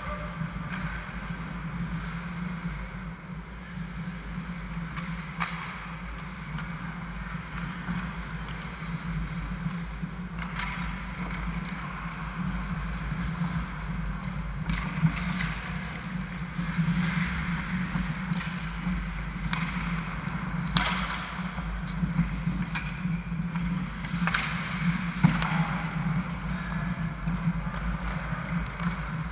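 Ice hockey game play: scattered sharp clacks and scrapes of sticks, puck and skates on the ice over a steady low hum, the clacks more frequent and louder in the second half.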